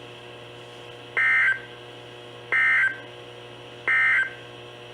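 Three short bursts of EAS/SAME digital data tones on NOAA Weather Radio, spaced about a second and a half apart: the end-of-message signal that closes a warning. A low steady hum from the radio runs underneath.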